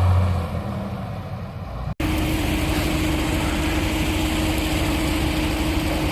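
Tractor engine running. The sound breaks off for an instant about two seconds in, then a steady engine run with a constant hum carries on.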